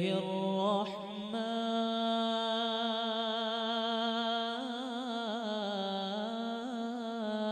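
A male reciter chanting the Quran in the melodic tajweed style, drawing out long held notes with wavering, ornamented turns of the voice in the second half.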